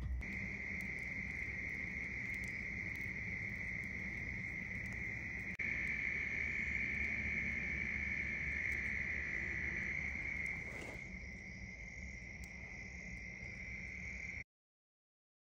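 Steady night chorus of frogs and insects in riverside woods, a dense high-pitched ringing that carries on without a break and cuts off suddenly near the end.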